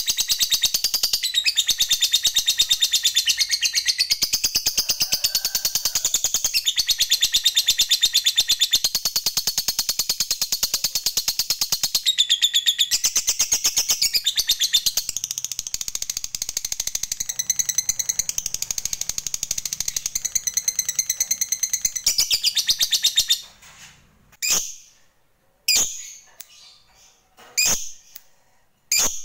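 Lovebird giving a long, unbroken 'ngekek' chatter, a very rapid run of shrill, high notes kept up for over twenty seconds. This long chatter is the kind hobbyists prize in a fighter lovebird. It then stops short and is followed by a few single short chirps.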